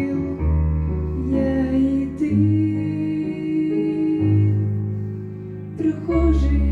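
Slow, gentle instrumental music from a Christian song: held chords over bass notes that change every second or two.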